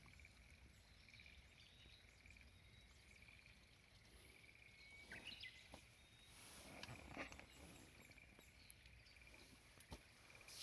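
Near silence: faint outdoor ambience with a high chirping that pulses steadily, like an insect, and a few soft clicks near the middle and end.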